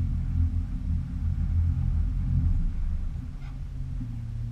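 Low, steady hum of the jon boat's motor, its pitch dropping a step about four seconds in. A brief click about three and a half seconds in.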